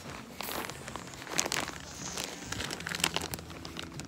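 Clear plastic packaging crinkling as it is handled, a run of short, irregular crackles.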